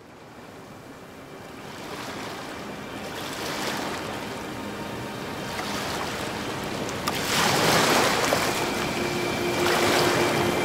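Ocean surf fading in on the soundtrack, with waves washing in every few seconds. Faint held tones of ambient music join about two-thirds of the way through.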